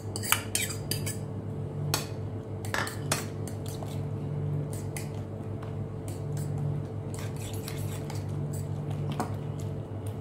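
A metal spoon clinking and scraping against a bowl, stirring chopped vegetables into beaten eggs, with irregular clicks throughout. A steady low hum runs underneath.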